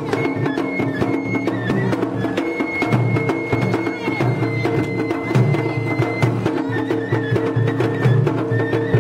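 Japanese festival float music: rapid, steady drum and percussion beating with a high whistle-like note held over it, stepping between a few pitches.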